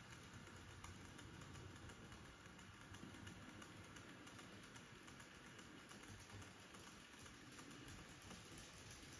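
Faint, rapid clicking of a model freight train's wheels running over the rail joints as the train passes, with a low running rumble beneath.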